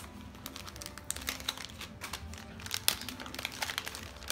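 Paper crinkling and rustling in irregular crackles as a gift is unwrapped.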